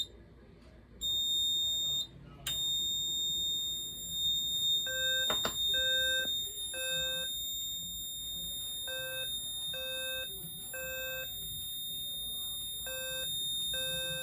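Fire alarm system going into alarm as a smoke detector is tripped with a magnet. A high-pitched electronic tone beeps on and off about once a second, then holds steady after a click about two and a half seconds in. From about five seconds in, a fire alarm horn sounds the temporal-three evacuation pattern: three short blasts, a pause, and repeat.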